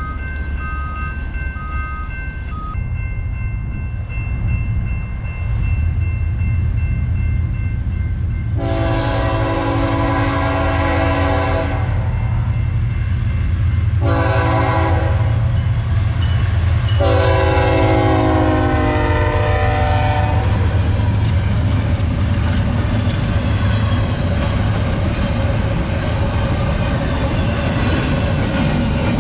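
Electronic grade-crossing bell ringing briefly, then a BNSF freight locomotive's air horn sounds three blasts, long, short, long, as it approaches. The steady rumble of the locomotives and empty well cars rolling through the crossing follows.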